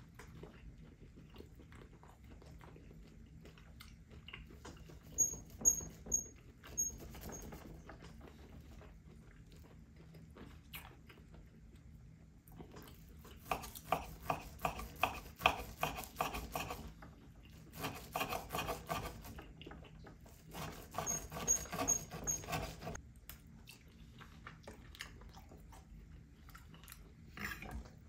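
A steak knife saws back and forth through the charred crust of a thick bone-in cowboy ribeye on a wooden cutting board. Three runs of quick sawing strokes come in the second half, with lighter scrapes and clicks of knife and fork before them.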